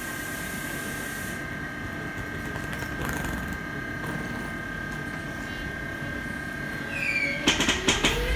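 ÖBB 4746 electric multiple unit at a standstill, its transformer giving a steady, loud high-pitched whine. About seven seconds in, rising whines from the traction drive and a few sharp knocks come in as the train starts to pull away.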